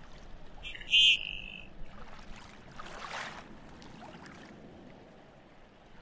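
One short, high call from a common goldeneye duck about a second in, over a steady background wash of open water. A brief rush of noise comes about three seconds in.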